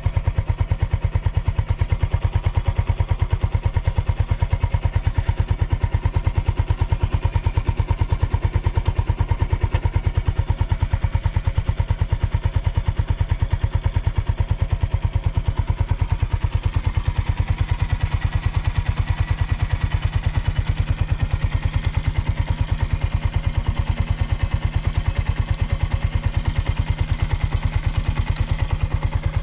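Suzuki Volty's single-cylinder engine idling steadily in an even run of exhaust pulses. It is free of abnormal noises and runs very quietly.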